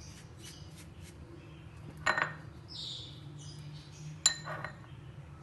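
Light kitchen clinks and knocks of a utensil against a dish while butter is brushed onto rolled dough. There is a short knock about two seconds in and a sharp, briefly ringing clink about four seconds in.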